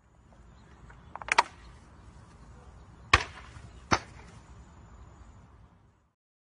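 A plastic bottle crackling briefly as it is twisted, then two sharp loud impacts about a second apart.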